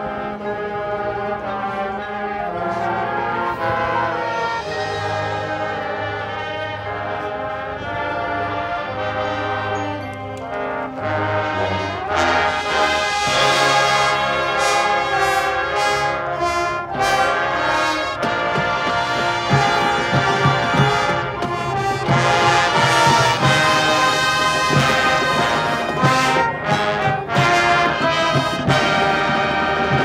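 Marching band playing, led by its brass section in sustained chords over front-ensemble percussion. The music grows louder about twelve seconds in, and sharp percussion hits join from about twenty seconds in.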